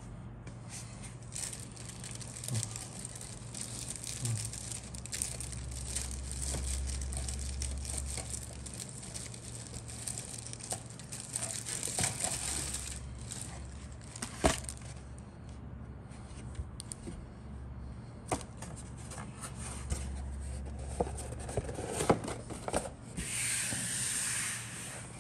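Handling noise of plastic model kit parts: rustling and crinkling with scattered clicks and knocks as the sprues are moved about on a cutting mat, and a louder brushing rush near the end. A low steady hum runs underneath.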